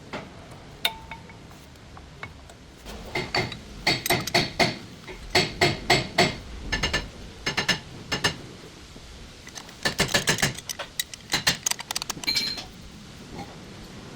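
Metal clinking and tapping: quick runs of sharp metal strikes with a ringing tone, coming in several clusters with short pauses between them.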